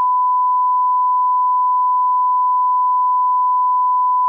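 Steady, loud 1,000 Hz reference test tone, a single unwavering pitch: the line-up tone that accompanies colour bars.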